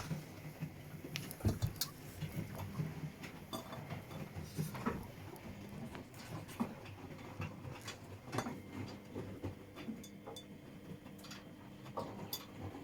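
Washing machine running, a steady low motor hum under irregular clicks and knocks as the drum turns the load.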